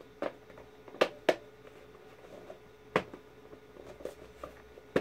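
Hard plastic helmet shells knocking and clicking as the front and back halves of a Hasbro Black Series Kylo Ren helmet are forced together, with the inside tabs not yet catching. Several sharp clicks, two close together about a second in.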